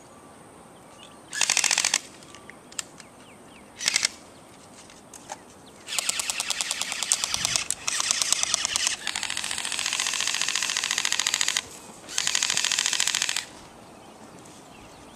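Airsoft electric guns firing on full auto: two short bursts, then a long burst of about five and a half seconds and a final burst of over a second.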